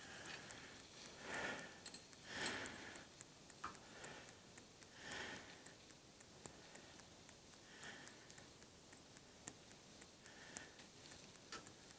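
Very quiet: faint, quick ticking runs throughout, with a few soft breaths or sniffs spaced a few seconds apart.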